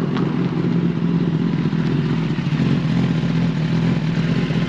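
Kawasaki Ninja ZX-10R's inline-four engine running steadily at low revs as the motorcycle rolls slowly up and comes to a stop.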